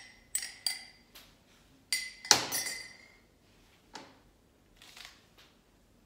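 Glassware clinking: a small glass tapped against a glass mixing bowl, a few sharp clinks in the first second, then two stronger ones about two seconds in, the second the loudest with a short ring. A couple of faint knocks follow.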